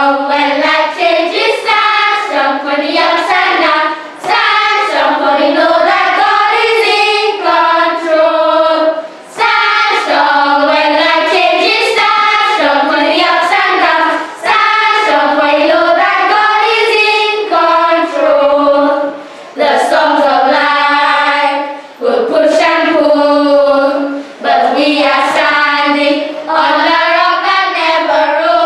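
A group of children singing a song together, one melody line in phrases a few seconds long with short breaks for breath between them.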